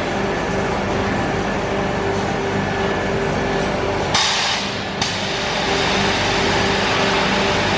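Steady hum of industrial machinery with a constant drone. About four seconds in, a brief hiss cuts in and ends with a sharp click, and then the hum carries on.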